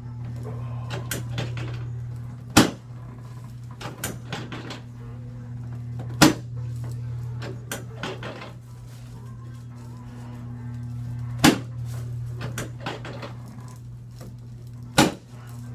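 Chiropractic drop table (Thompson drop technique): the drop section is thrust down and falls with a sharp clack four times, a few seconds apart, with lighter clicks and knocks in between. A steady low hum runs underneath.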